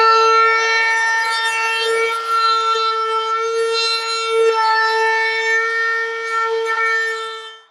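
Wood router spinning a carbide round-over bit while rounding over drawer edges: a loud, steady high whine that wavers slightly as it cuts, then stops near the end.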